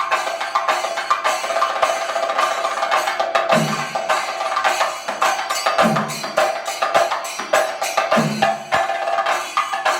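Thayambaka on chenda drums: fast, dense drumming, with ilathalam cymbals ringing steadily and a deeper bass stroke about every two and a half seconds.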